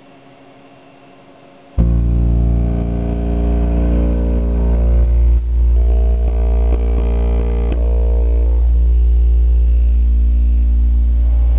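DC Audio XL 15-inch subwoofer running free air, with no enclosure, playing a very loud, deep bass tone. The tone starts suddenly about two seconds in and holds for nearly ten seconds, with one brief dip about halfway. It is being pushed at roughly 8,000 watts, about all it can take.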